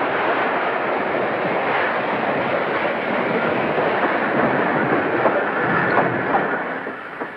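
Train running at speed: a steady rushing rumble and rattle of the cars on the rails, dying down near the end.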